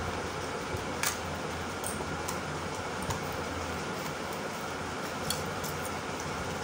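Steady whirring of a room fan with a low hum, and a few faint clicks, about a second in and again near the end, as jewellery is handled.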